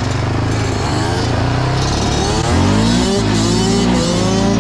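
Quad ATV engine running close by at steady revs, then revving up and rising in pitch from about halfway as it pulls away, with a dirt bike's engine running alongside.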